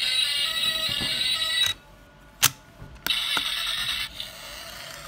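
A tune of steady pitched tones cuts off about one and a half seconds in. A sharp click follows, as a toy car's plastic gull-wing door is snapped shut. Then come two lighter clicks, and the tune briefly returns.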